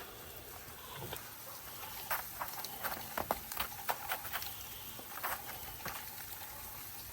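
Icy, sleety snow crunching and ticking: irregular light clicks over a faint hiss, thickest in the middle.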